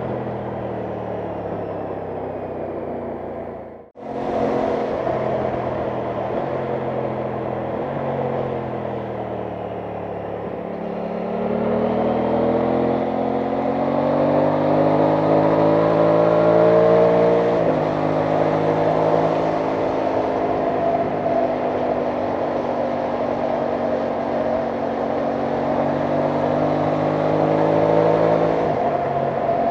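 Aprilia Tuono 660 Factory's parallel-twin engine running under way. It eases off, then pulls steadily up through the revs from about eleven seconds in, with a drop in pitch at a gear change partway through, over rushing wind. The sound cuts out for an instant about four seconds in.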